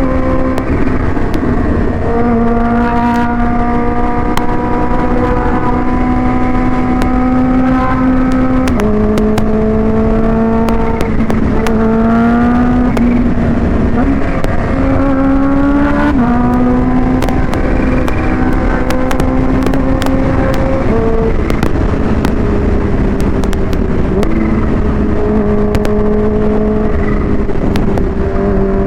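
Supercharged Kawasaki Ninja H2 inline-four running through a Vandemon exhaust under way. It holds steady revs, with the pitch dropping and climbing several times as the throttle and gears change. Heavy wind noise on the mic sits underneath.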